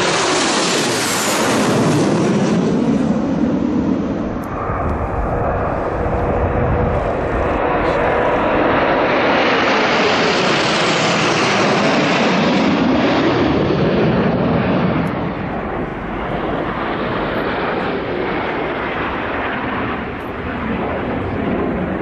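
A formation of Alpha Jets, each powered by twin Larzac turbofans, flies past at speed with a loud, whizzing jet rush. The sound swells about a second in, eases, then builds again to a second peak around ten seconds in before falling away.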